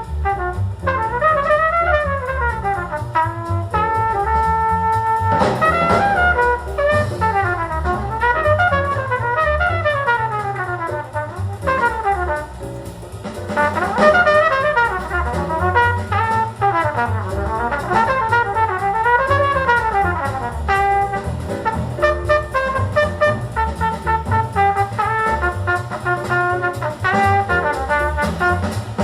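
Jazz quartet recording: a trumpet solo in quick rising and falling runs over bass and drums, with one note held briefly about four seconds in.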